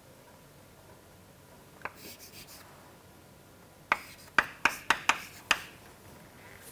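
Chalk writing on a blackboard: a single tap and a brief scratch about two seconds in, then a quick run of about six sharp taps and short strokes between four and five and a half seconds in.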